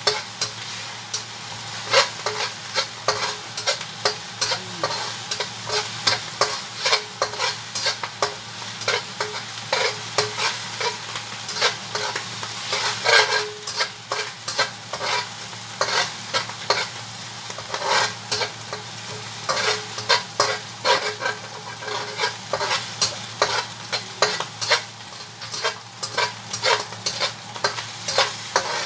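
Food frying in a stainless steel pan with a steady sizzle, while a utensil stirs it, scraping and knocking against the pan in many quick, irregular strokes.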